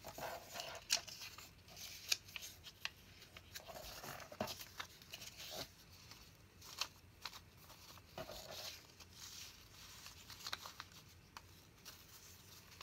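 Paper being handled and folded on a craft table: irregular rustling and crinkling with sharp little clicks and taps, busier in the first part and sparser near the end.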